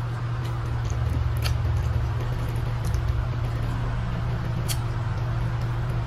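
Chewing and mouth sounds from eating tilapia cooked in soy sauce, with a few sharp clicks, over a steady low hum.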